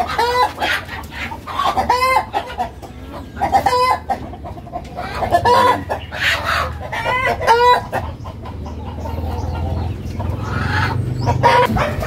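Chickens clucking and squawking, with a short call every second or two.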